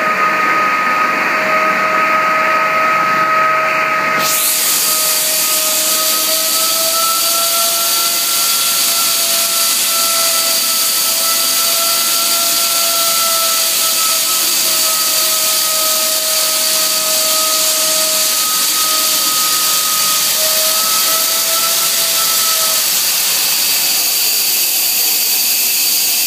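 Wolf 12-VR 12-inch ceiling blast head with vacuum blast recovery blasting a concrete ceiling: a loud steady hiss of air and abrasive over a steady two-note whine. About four seconds in, the hiss suddenly turns harsher and brighter, and the whine drops out a few seconds before the end.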